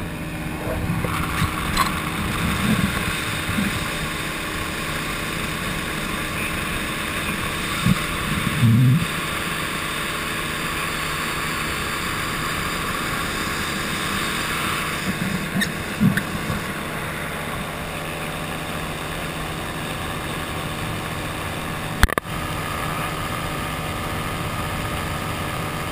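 Paratrike's engine and pusher propeller running steadily at cruise power in flight, with wind rushing over the microphone. A few low thumps come and go, and there is one sharp knock about 22 seconds in.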